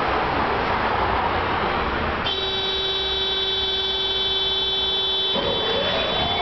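Buzzer inside a Tatra T5C5 tram sounding one steady buzz of about three seconds over the running noise of the car. Just after it stops, a rising whine begins near the end.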